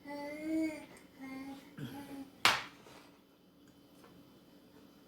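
A woman's wordless humming sounds in the first two seconds, then a single sharp smack about two and a half seconds in, the loudest sound.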